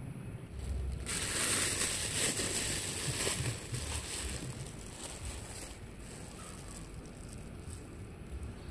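A plastic bag rustling and crinkling as hands open it and dig into crumbly fishing bait, loud from about a second in and dying down after about five seconds into quieter handling.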